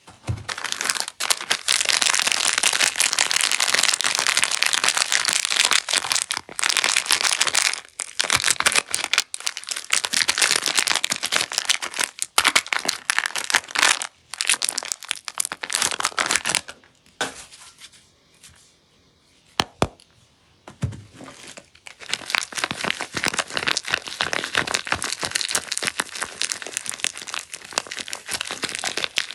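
Soap packaging being crinkled and torn open by hand: a dense, crackly crinkling with short pauses and a quieter stretch of a few seconds about two-thirds of the way in.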